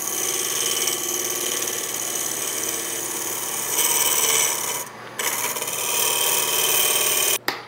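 Spindle roughing gouge taking a planing cut along a spinning walnut cylinder on a lathe, a steady shearing hiss of the edge slicing shavings as it levels the flats off the surface. The cut breaks off briefly about five seconds in and again near the end.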